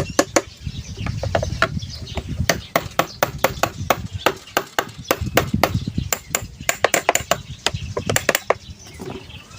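Light, quick hammer taps on an exhaust fan to align its motor shaft, coming in short runs of several taps a second with brief pauses between.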